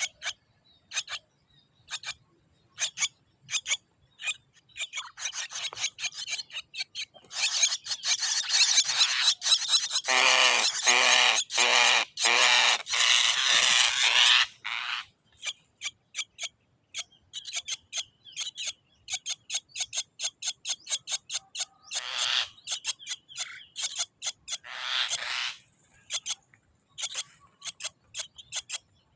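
Javan myna calling: a run of short, sharp clicking notes, broken in the middle by several seconds of loud, scratchy chattering, then more clicks and two short scratchy bursts later on.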